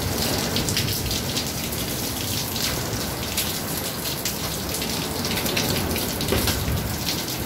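Heavy rain pouring onto a wet concrete rooftop terrace: a steady hiss of rain with many sharp, close drop hits.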